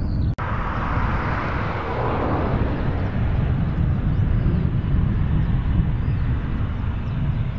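Panavia Tornado jets' twin RB199 turbofan engines running on the runway at low power before takeoff: a steady deep rumble with a jet hiss that slides lower over the first couple of seconds. The sound drops out for an instant about half a second in, at an edit.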